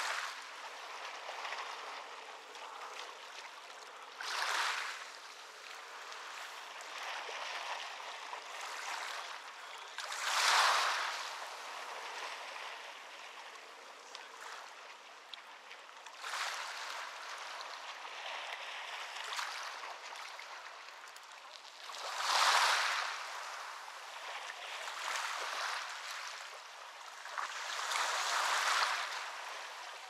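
Ocean waves breaking on a beach: a surge of surf about every six seconds over a steady wash of water.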